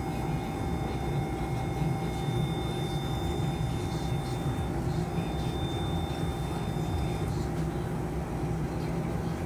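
Steady low hum of operating-room equipment during surgery. Faint high electronic tones sound over it, one of them breaking off about halfway through, coming back, and stopping a little before the end.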